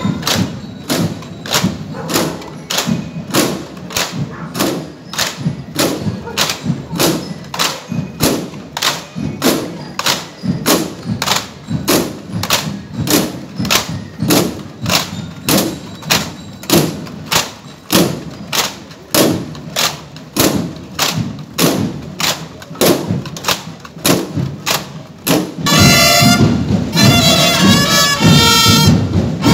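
Steady marching cadence of sharp thumps, about two a second, from a military parade unit moving in step. Near the end a brass band strikes up over it.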